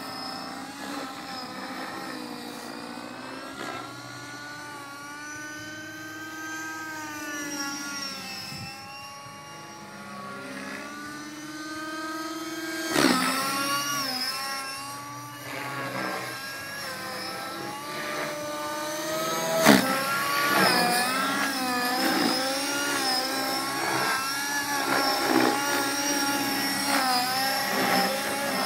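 Align T-Rex 600 radio-controlled helicopter flying: a whining rotor and motor sound whose pitch keeps rising and falling as it manoeuvres, growing louder in the second half. Two sharp clicks stand out, about halfway through and again several seconds later.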